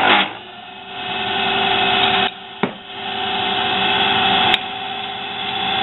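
Motor of a miniature benchtop drill press spinning a center drill bit into an aluminum plate: a steady motor whine with a cutting noise that builds as the bit is fed in. The cutting eases off twice, with a click about two and a half seconds in and another sharp click about four and a half seconds in.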